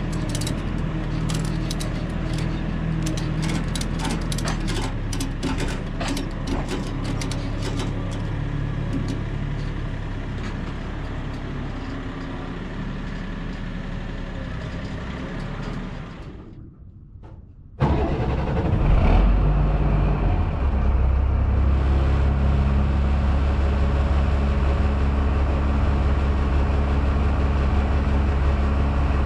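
Vehicle engine running steadily, with a scatter of rattling clicks over the first several seconds. After a brief break about seventeen seconds in, a louder, deeper engine drone runs on steadily.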